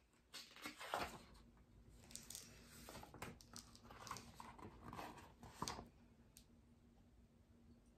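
Faint rustling of paper pages and soft taps as a picture book is opened and lifted up, a string of short papery crackles that stops about six seconds in.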